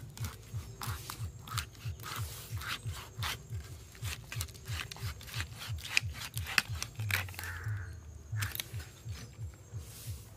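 A boti blade cutting through a tuna: repeated short rubbing, scraping strokes as the fish is sawn back and forth against the fixed upright blade. A steady low pulsing beat, about three a second, runs underneath.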